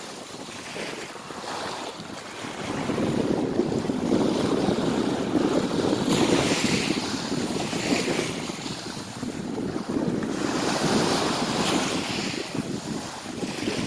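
Small waves washing in over a pebble shore, each wash a soft hiss that rises and falls every second or two. Wind buffets the microphone with a low rumble that strengthens a few seconds in.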